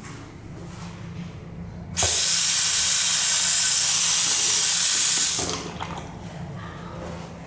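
Single-lever faucet on a porcelain wall-hung sink turned on about two seconds in, water running steadily into the basin for about three and a half seconds, then shut off suddenly.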